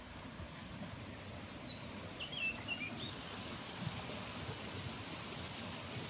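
Outdoor ambience over a steady hiss: a small bird sings a short phrase of quick high chirps about two seconds in, with a few soft low thumps scattered through.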